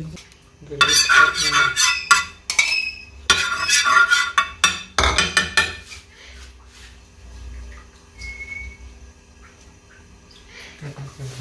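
Kitchen clatter: dishes and cookware knocking and rattling in quick runs through the first half, then much quieter.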